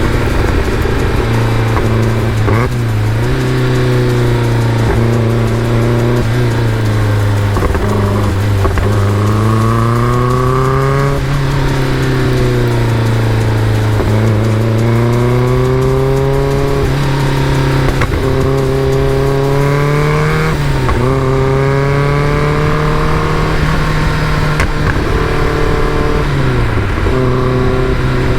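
Caterham Super Seven engine pulling through the gears while driving. The revs climb and then drop sharply at each gear change, several times over, with a steady stretch in between.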